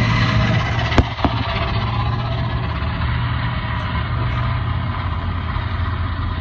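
Steady engine and road noise of a car driving at highway speed, heard from inside its cabin: a constant low hum under a broad rush of tyre and wind noise, with two sharp clicks about a second in.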